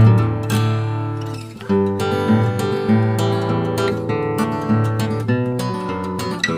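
Background music on acoustic guitar, plucked and strummed at a steady pace.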